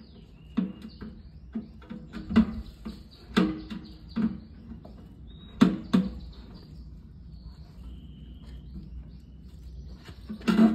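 Irregular knocks and clunks, about six, as metal and plastic parts are handled. Short high bird chirps sound in the background.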